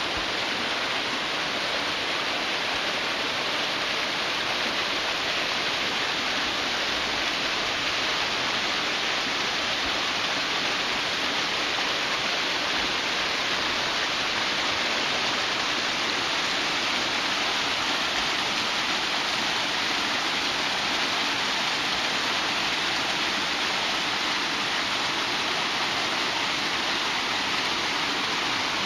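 Small waterfall cascading over rock ledges: a steady, even rush of falling water.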